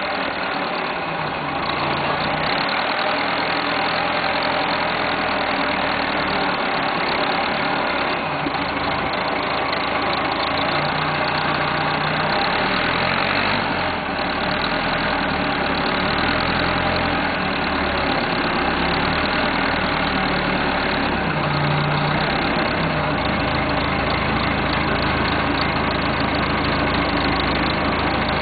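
1976 Massey Ferguson 50D backhoe's engine running steadily while the machine is driven slowly, its speed changing now and then, with wind blowing on the microphone.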